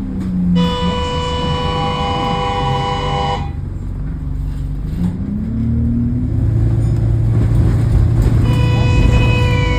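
Bus running with an odd, steady droning tone with overtones, the 'awful noise', which sounds for about three seconds starting half a second in and comes back near the end, over the engine note, which rises in pitch around the middle and then drones steadily.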